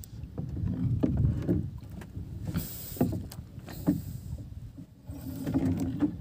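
Water sloshing and slapping against the hull of a small outrigger fishing boat at sea, with a few sharp knocks from the boat around the middle.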